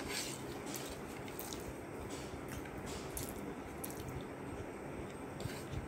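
Close-up mouth sounds of someone eating a meal of rice by hand: wet chewing with soft squishes and scattered small clicks and smacks, over a steady low background hum.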